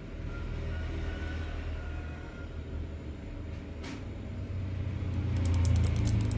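A low, steady background rumble that swells over the last second or so, with a single faint click near the middle and a rapid run of faint high ticks near the end.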